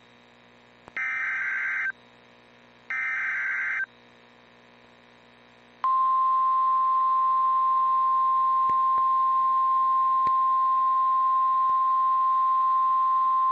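Two bursts of NOAA Weather Radio SAME header data, each about a second long and a second apart, a buzzy digital warble. After a pause of about two seconds the steady single-pitch 1050 Hz Weather Radio warning alarm tone starts and holds. The alarm tone signals that a warning-level alert, here a tornado warning, is about to be read.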